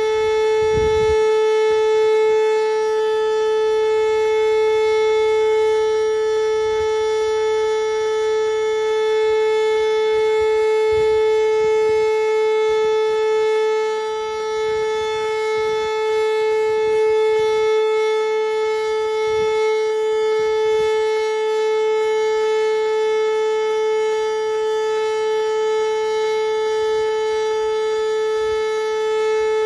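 Whelen WPS 2909 electronic tornado siren sounding its steady alert tone: one loud, unwavering pitch held without rise or fall, dipping slightly in level once midway.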